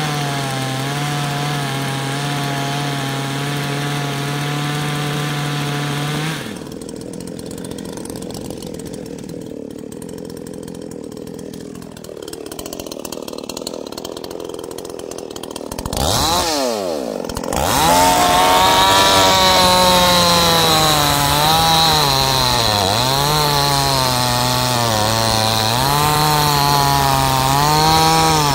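Two-stroke chainsaws cutting through a log. A saw runs steadily at full throttle, then drops to a quieter, duller sound for about ten seconds. After a short swoop in pitch a little past halfway, a saw runs loud again, its pitch dipping and recovering as it bites into the wood under load.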